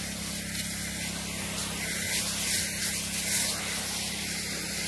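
Pesticide spray jetting from a spray gun into apple trees as a fine mist: a steady hiss that swells a little now and then, over a steady low hum.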